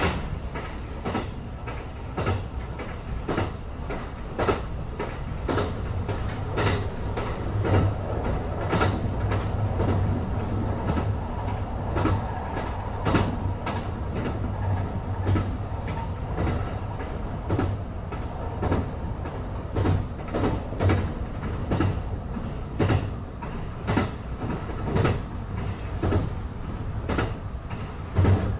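Train running, heard from aboard the carriage: a steady low rumble with regular clicks of the wheels passing over rail joints, about one or two a second.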